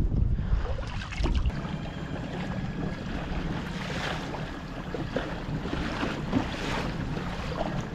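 Sea water rushing and splashing along the hull of a moving fishing kayak, with wind buffeting the microphone, heaviest in the first second and a half.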